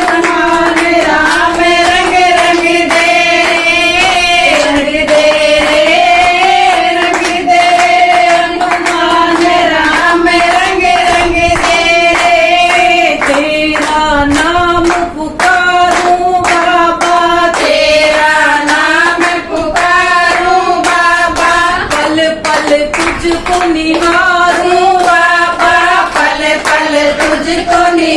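Group of women singing a Hindu devotional bhajan to Hanuman together, with steady hand clapping keeping the beat.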